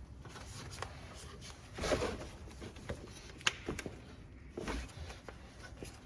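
Hand-handling noises of a new rubber accessory belt being worked onto an engine's pulleys: scattered small clicks with short rubbing and scraping bursts about two seconds in and again near five seconds, and a sharp click about three and a half seconds in.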